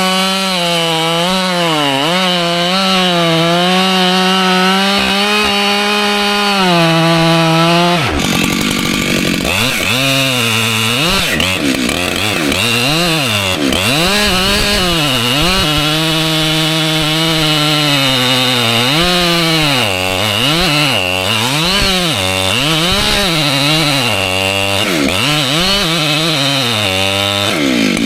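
Two-stroke Husqvarna chainsaw cutting white oak, held at a steady high speed for about eight seconds, then its engine note dropping and rising again and again as the load in the cut changes.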